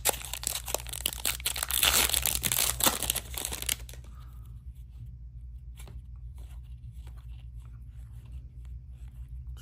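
Foil wrapper of an Upper Deck hockey card pack being torn open and crinkled for about four seconds, then the fainter flick and slide of trading cards being leafed through by hand.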